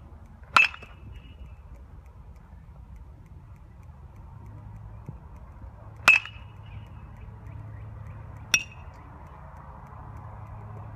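Metal baseball bat striking a ball three times: sharp ringing pings, about half a second in, about six seconds in, and again two and a half seconds later.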